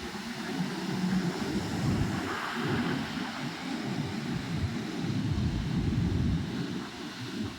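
Strong wind buffeting the microphone over the rush of big sea waves, in rough gusts. A steady hum underneath stops about a second in.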